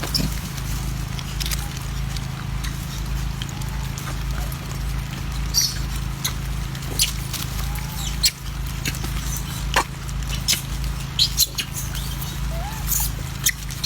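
Monkeys giving a few short squeaky calls, with scattered sharp clicks over a steady low hum.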